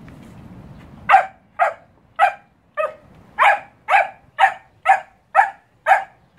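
A puppy barking in a quick, steady run of short, sharp barks, about two a second, starting about a second in.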